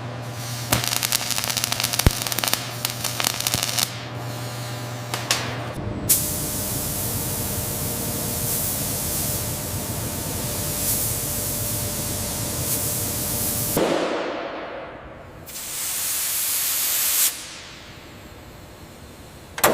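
A steady spraying hiss in two stretches, the first about eight seconds long and the second about two seconds, ending abruptly. Irregular crackling clicks come before it.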